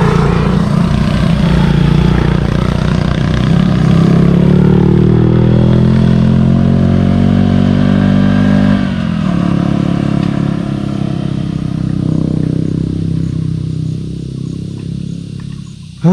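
A motor vehicle's engine pulls away, rising in pitch for several seconds. Its pitch drops suddenly about nine seconds in, as at a gear change, then it steadies and fades away over the last few seconds.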